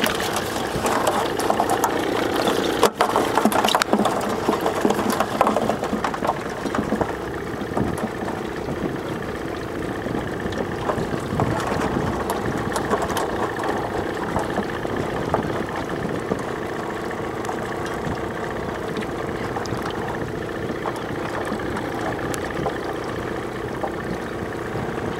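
Boat's outboard motor running steadily at low speed, with some knocks and clatter in the first few seconds.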